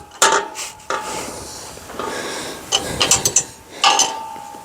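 A field gate being worked: the latch rattles and clicks, and the hinges give two short creaks as the gate swings, one just after the start and one about four seconds in.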